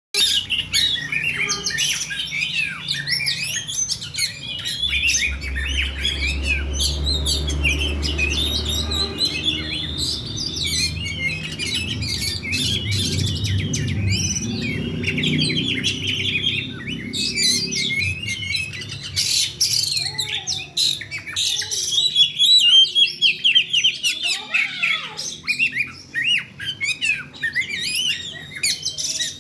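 Oriental magpie-robin singing in full voice, a fast, continuous stream of varied chirps, whistles and harsh rattling notes.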